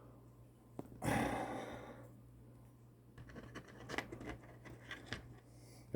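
A single breath out about a second in, then a scatter of light clicks and taps from small metal airbrush parts and a tool being handled.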